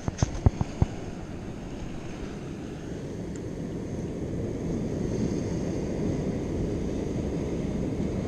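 Steady wind and surf noise on a rocky shoreline, mostly low and growing slightly louder, with a few sharp handling knocks in the first second.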